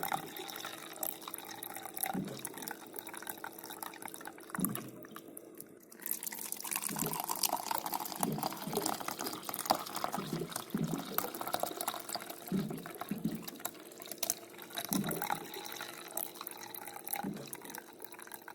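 Water running from a water dispenser's tap into a container, the flow easing off about five seconds in and coming back stronger a second later. Short low glugs break through every second or two as air bubbles up into the upturned water bottle.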